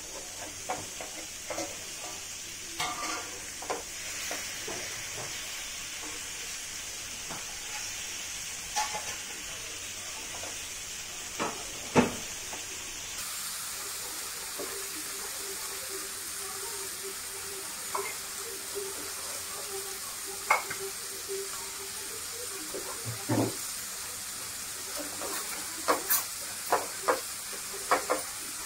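Pieces of masala-coated wallago catfish frying in oil on a flat pan, with a steady sizzle. A metal spatula scrapes and clinks against the pan as the pieces are turned over, more often near the end.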